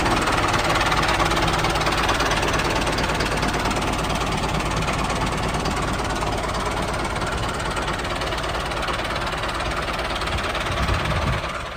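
Mini tractor's small engine running steadily with a fast, even beat, stopping near the end.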